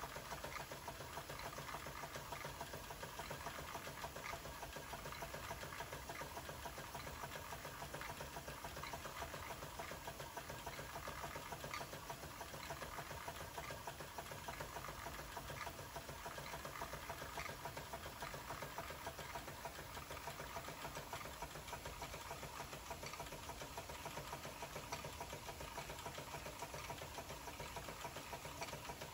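Jensen 75 live-steam toy engine running at speed on a good head of steam, with the belt-driven miniature workshop machines it powers. Together they make a steady, rapid mechanical clatter.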